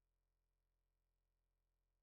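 Near silence: digital silence with only a very faint low hum.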